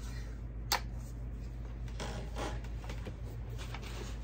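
Diana 48 side-lever spring-piston air rifle: the cocking lever is swung shut and latches with one sharp click a little under a second in. Fainter clicks and rustles follow as the rifle is handled and brought to the shoulder.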